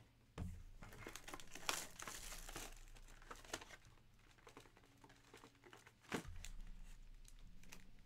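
Foil and paper wrapping of a sealed trading-card box crinkling and tearing as it is opened by hand, with two dull knocks on the table, about half a second in and about six seconds in.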